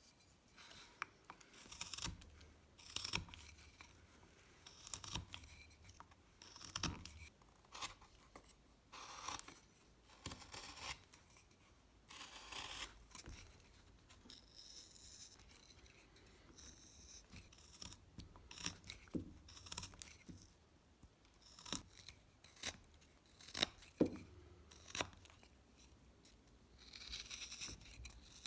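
Carving knife cutting and shaving wood by hand: a run of irregular short scraping cuts, with a few sharp clicks among them.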